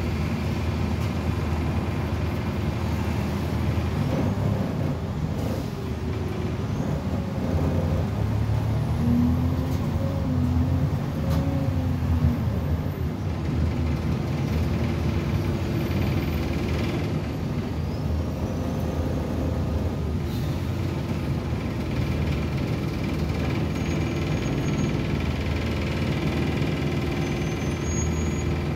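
Optare Solo single-deck bus heard from inside the saloon, its diesel engine and drivetrain running steadily as it drives, with the pitch rising and falling a few times about a third of the way in.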